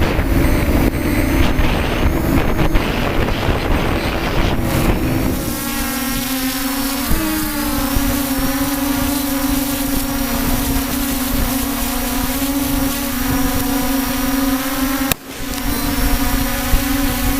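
Steady motor hum holding one pitch with a stack of overtones, under heavy wind buffeting on the microphone for the first five seconds. The pitch wavers briefly once, and the sound drops out for a moment near the end.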